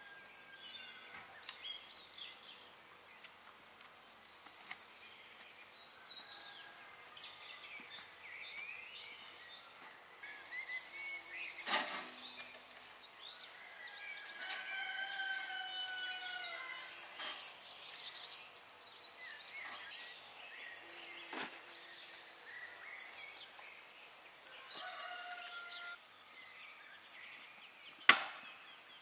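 Birds calling and singing throughout, with one longer call in the middle. A few sharp knocks stand out, the loudest near the end.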